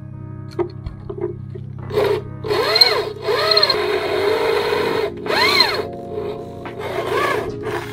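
Corded electric drill boring a hole through a steel plate, in about four bursts, its motor pitch rising and falling with each one; background music plays throughout.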